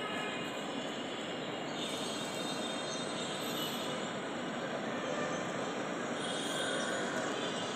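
Steady rushing noise with faint high whistling tones running through it.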